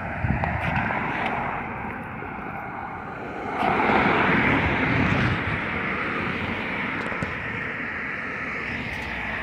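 Vehicle noise from a passing road vehicle, swelling about three and a half seconds in and then easing off.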